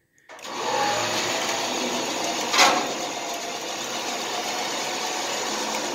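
Electric trailer winch running steadily, its motor and gearing pulling the car in on the cable. It starts suddenly just after the start, with one brief louder noise about two and a half seconds in.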